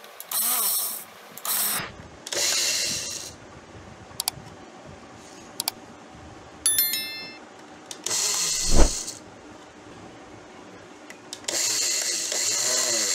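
The opened plastic base of a mixer grinder being handled and shifted: several short bursts of scraping and rattling, a few sharp clicks, and one heavy thump about two-thirds of the way in.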